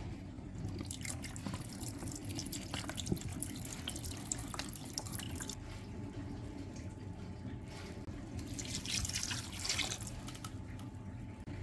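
Water running from a tap into a sink, splashing unevenly with scattered clicks and knocks, and a louder stretch of splashing near the end.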